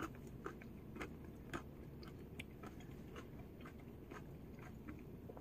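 Faint, irregular crunching of a person chewing a bread and butter pickle slice.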